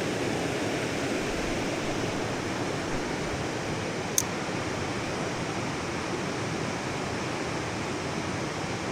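Steady rush of flowing river water, an even hiss with no breaks. A single brief, sharp click about four seconds in.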